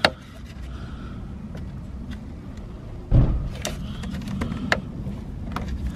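Plastic clips of a Ford Focus ST front bumper cover being worked loose by hand: a sharp snap at the start, a heavy thump about three seconds in, then a string of smaller clicks and snaps.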